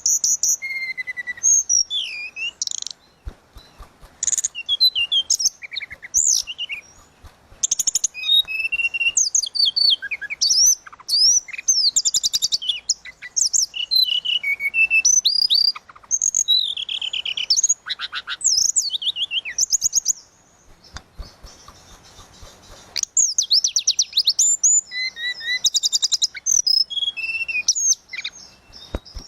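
Tledekan laut songbird singing steadily in varied high whistled phrases and fast trills, with a short pause a little past the middle.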